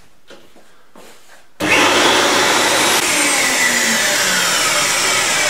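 A circular saw in a Festool CMS table and the vacuum cleaner hosed to its dust port start together from one switch, with a sudden start about a second and a half in, then run loud and steady with a whining rush.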